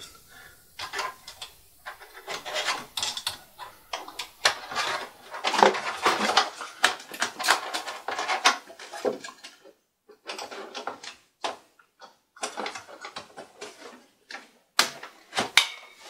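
Irregular scraping, rubbing and clicking of a low-profile graphics card's metal bracket against the steel computer case and slot as it is worked into place, with a sharper click near the end as the card seats.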